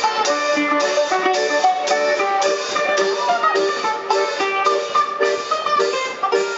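Live band playing upbeat Brazilian music: plucked guitars over a steady beat of about two strokes a second.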